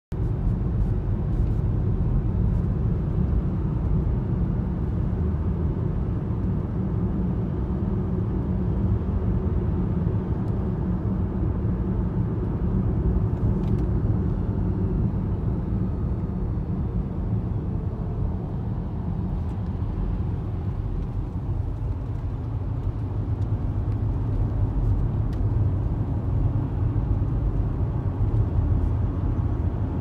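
Steady road noise inside a car cabin at highway speed: a low rumble from the tyres and engine, with a few faint clicks.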